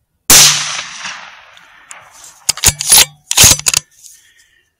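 .243 Winchester rifle shot, recorded close up by the scope's built-in microphone, its report rolling away over about a second and a half. About two seconds in comes a quick run of loud, sharp metallic clacks from the rifle's action being worked to chamber another round.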